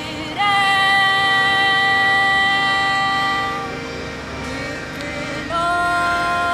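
Live Indian theatre song: a voice sings long held notes that scoop up into pitch, one phrase starting about half a second in and fading near four seconds, a second entering about five and a half seconds in, over the steady tones of a harmonium.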